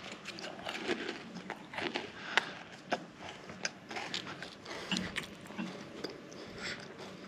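Someone chewing crunchy food close to the microphone, irregular crisp crunches and small clicks: eating the Kinder Joy chocolate wafer treat.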